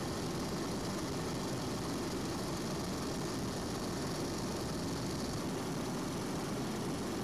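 Helicopter in flight: steady rotor and turbine noise at an even level.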